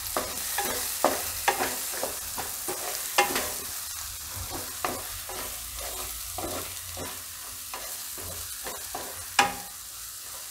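Chopped green onion and green garlic sizzling in hot oil in a metal kadai as ground spices are stirred in, a steady frying hiss under frequent clicks and scrapes of the spatula against the pan. The sharpest knocks come about three seconds in and near the end.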